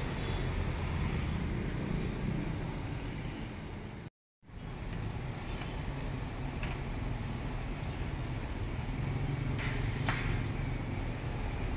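Steady street traffic noise with a low rumble, cut off briefly about four seconds in, with a few faint ticks over it.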